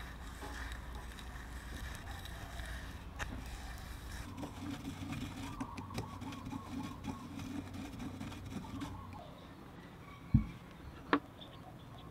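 Small scooter brake-panel parts being handled on a workbench: faint scraping and fiddling, then a low thump about ten seconds in and a sharp click just after.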